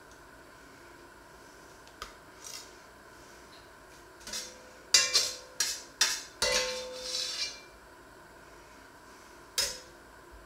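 Metal spatula scraping and knocking against an enamelled cast-iron casserole pot as food is lifted out: a quick run of sharp clinks and scrapes between about four and seven and a half seconds in, with one more clink near the end.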